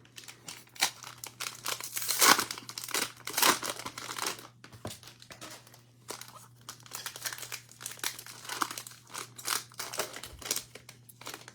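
Cellophane wrapper of a trading-card cello pack being torn open and crinkled, a dense run of irregular crackles and rustles.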